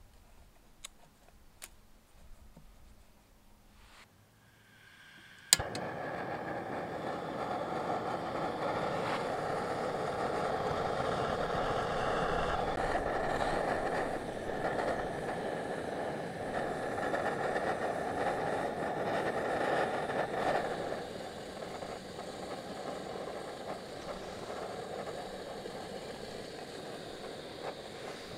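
A sharp click from the piezo igniter of a portable gas canister stove, then the burner lights at once and burns with a steady hiss under a kettle of water. The hiss turns a little quieter about 21 seconds in.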